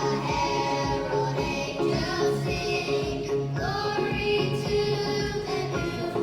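Children singing a song over instrumental accompaniment.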